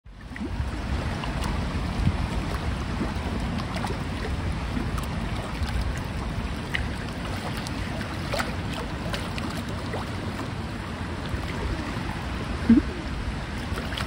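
Wind buffeting the microphone over choppy lake water, a steady low rumble with faint scattered ticks. A brief, louder low sound rises in pitch about a second before the end.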